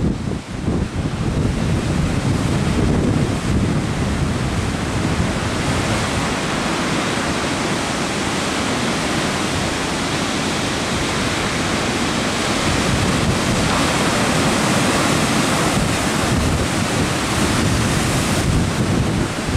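Surf washing in and draining back over a sand beach: a steady rushing of breaking waves and foam, with wind buffeting the microphone as a low rumble that eases midway and returns near the end.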